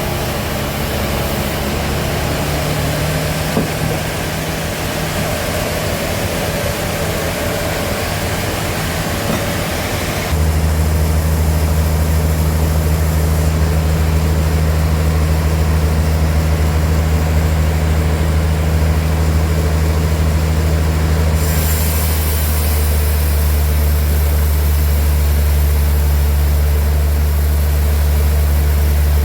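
A large engine running steadily with a deep hum; about ten seconds in it grows louder and heavier, and it stays at that level to the end.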